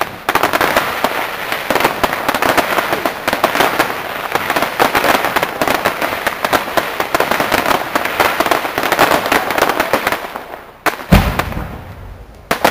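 Fireworks display: a long dense run of crackling, many sharp pops in quick succession, that fades about ten seconds in. Then a single heavy boom about eleven seconds in, and the crackling starts again at the very end.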